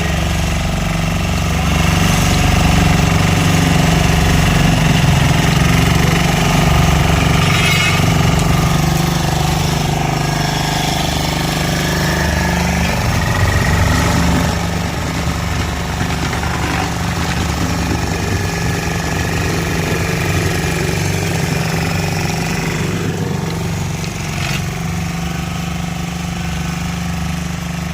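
Road roller running steadily: a constant engine drone with a strong low hum, a little quieter in the second half.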